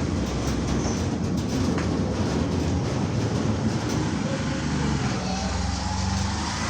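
Steady low machine rumble with a continuous hum.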